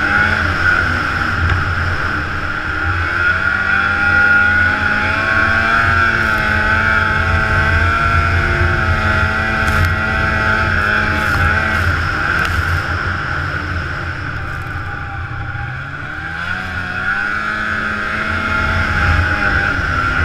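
Ski-Doo snowmobile engine running hard at speed over snow, with a steady high whine. About three quarters of the way in the throttle eases off, then the engine pitch climbs again as the sled accelerates.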